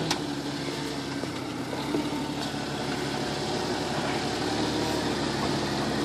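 Jeep Wrangler's engine running at a steady low idle as the Jeep crawls slowly forward over rocks, with a light click near the start.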